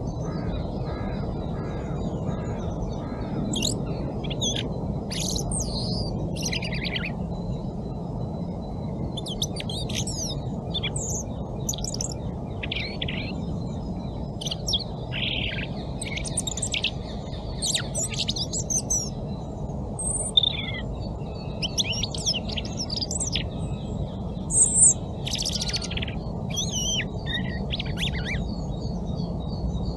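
European robin singing: a string of high, varied phrases with short pauses between them, over a steady low background noise.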